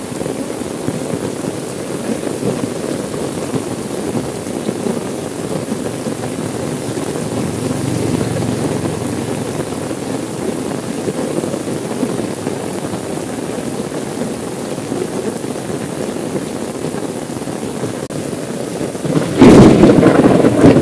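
Steady heavy rain on a car's windows and body, heard from inside the cabin. Near the end a sudden loud clap of thunder breaks in and rumbles on, the loudest sound here.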